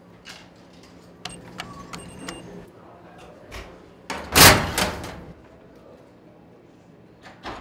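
Vending machine being worked: a series of small clicks with a few short beeps, as of keypad buttons, then about four and a half seconds in a loud thump and brief clatter at the delivery bin as a plastic water bottle is taken out.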